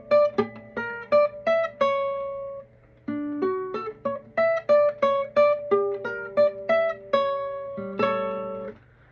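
Classical guitar playing a quick riff of single plucked notes high on the neck around the 12th fret, in two phrases. The first phrase ends on a held note about two and a half seconds in; after a short pause the second runs on and ends on a ringing note near the end.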